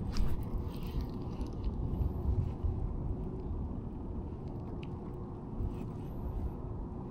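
Low, uneven rumble of wind and handling noise on a body-worn camera's microphone, with a couple of faint clicks.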